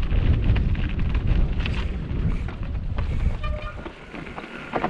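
A Cannondale Jackal mountain bike rolling down a steep rock slab: tyres rumbling over the rock, with wind buffeting the microphone. A brief high squeal of the brakes comes about three and a half seconds in, and the rumble dies down just after it.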